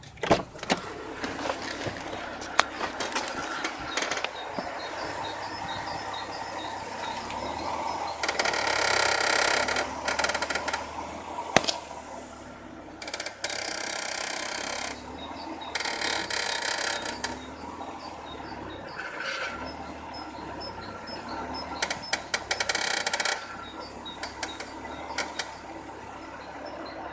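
Toyota JZX90's worn lower front ball joint squeaking: short high squeaks repeating in runs, with stretches of harsh creaking, as the suspension moves.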